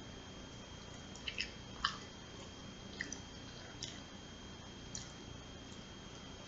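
Faint close-up chewing of soft food, with a handful of short wet mouth clicks and smacks at irregular intervals.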